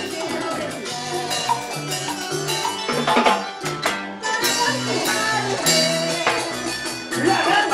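Live band playing an instrumental passage of Latin dance music: electric bass and drums with percussion under a melody line, without singing.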